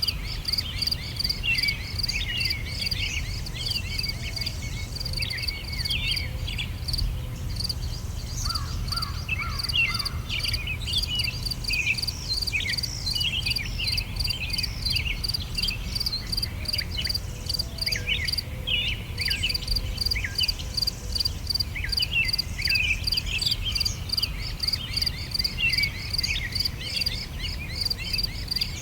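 Summer outdoor ambience: insects chirping in a rapid, even pulse, with small birds twittering and chirping all through, over a low rumble.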